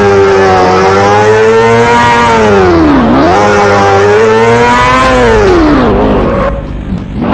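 Racing motorcycle engine sound effect, revving up and down: the pitch sags and climbs again about three seconds in and again near six seconds, with a quieter stretch near the end before it picks up once more.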